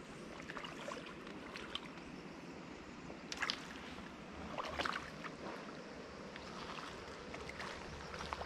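Shallow creek water making a steady wash, with a couple of short splashes about three and a half and five seconds in.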